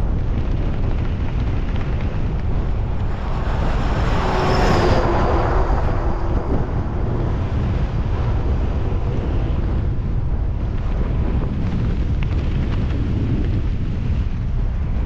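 Strong gale-force wind buffeting the microphone in a steady low rumble. About four seconds in, a passing vehicle, likely a heavy truck, swells up with a tonal hum and a high hiss and then fades.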